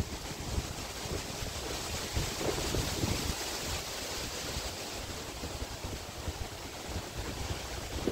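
Wind buffeting the microphone in irregular low gusts, over a steady outdoor hiss.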